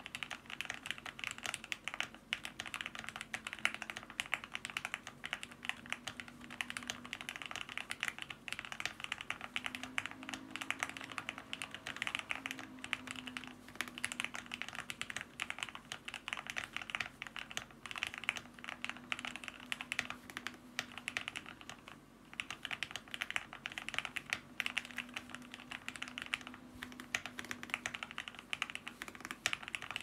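Fast, continuous typing on a custom Tofu 60 mechanical keyboard with lubed and filmed Gateron Milky Yellow linear switches on a polycarbonate plate, with a tape-modded PCB and no foam. It makes a dense stream of rapid keystrokes that lets up briefly about two-thirds of the way through.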